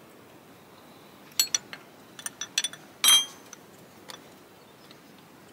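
A steel spanner clinking against bolts and fittings on a diesel engine's fuel pump area: a scatter of short, sharp metallic clinks, the loudest about three seconds in.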